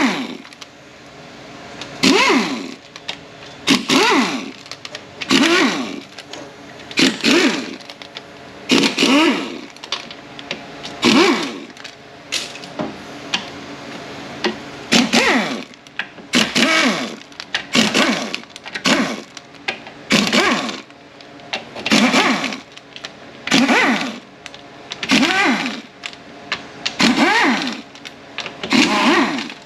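Pneumatic air ratchet spinning out the 8 mm bolts of a transmission oil pan. It runs in short bursts of about a second, roughly one every two seconds, and each whir rises and falls in pitch as a bolt runs out.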